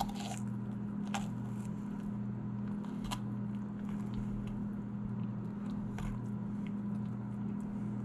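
Small knife cutting through a ruffed grouse carcass on a plastic cutting board, giving a few sharp crunching clicks as the blade goes through bone and cartilage to take off the back, over a steady low hum.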